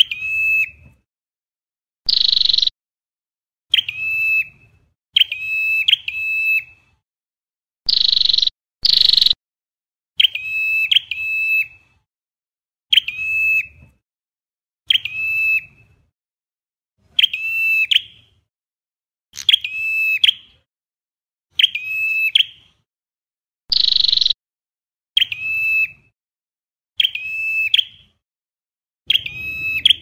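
Ashy tailorbird singing: clear whistled notes repeated every second or two, many given as quick doubles, with a few higher, shorter notes mixed in.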